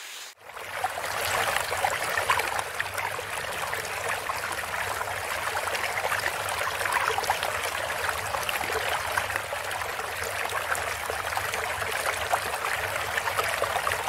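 Running, trickling water like a stream, a steady rush full of small crackles and splashes. It starts suddenly about half a second in.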